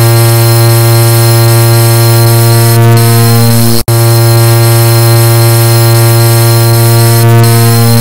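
Car horn beeps stacked and distorted into one continuous, very loud low horn tone, with a split-second break about four seconds in before it resumes.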